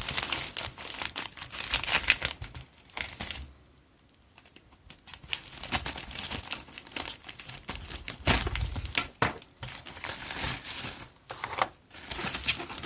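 Plastic mailer bag crinkling and tearing as it is handled and torn open by hand, in irregular rustling spells with a lull about four seconds in.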